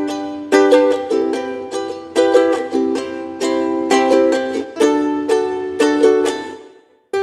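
Soprano ukulele of all-Hawaiian koa, strummed in a run of ringing chords that die away about six and a half seconds in; after a short silence a new strum starts just before the end.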